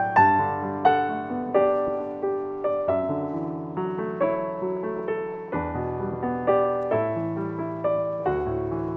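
Solo piano music: a gentle melody of single notes and chords, struck about twice a second, each note decaying.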